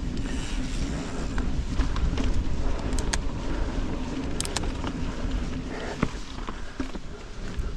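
Mountain bike rolling along a dirt forest singletrack: steady tyre rumble on the packed sand with wind noise on the action camera's microphone, and a few short clicks and rattles from the bike.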